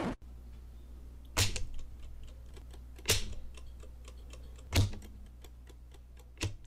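Four sharp clicks about every 1.7 seconds, with fainter ticks between them, over a steady low hum.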